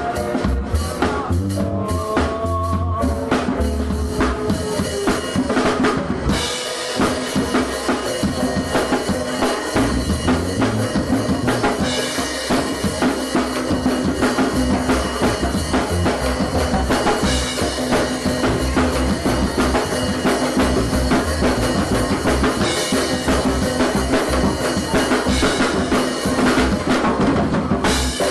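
Live band music with a full drum kit prominent, kick and snare driving a steady beat; the bass drops out briefly about six seconds in, then the groove resumes.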